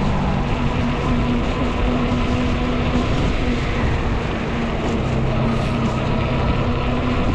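Ecotric folding fat-tire e-bike riding along: a steady motor hum over a dense rush of wind and tire noise.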